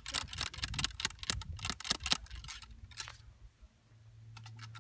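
A ramrod working a patched .535 round ball down the barrel of a .54 caliber muzzleloading flintlock rifle: a quick run of clicks, knocks and scrapes for about three seconds as the ball is seated, then it goes quiet apart from a low steady hum.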